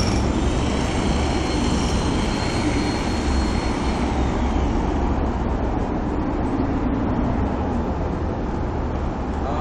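Steady city street noise with a deep traffic rumble and a faint high whine that fades out about four seconds in.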